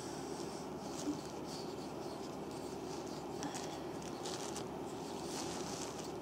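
Faint scratching and rubbing of oiled hands and a wooden reflexology stick working the sole of a bare foot, with a small knock about a second in, over a steady low background hum.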